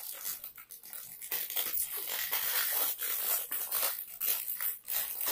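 Plastic film lid being pulled and torn off a jelly cup, crinkling and tearing in a quick run of short rustles that grow louder after the first second or so.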